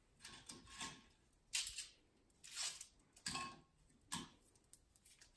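Soft rustling and crackling in several short bursts as a fortune cookie is opened by hand.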